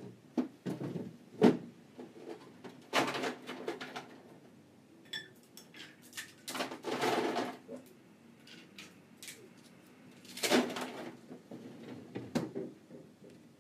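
Household clatter off to the side: scattered knocks and clicks, the loudest about a second and a half in, with three longer scraping or rustling bursts around three, seven and ten and a half seconds in.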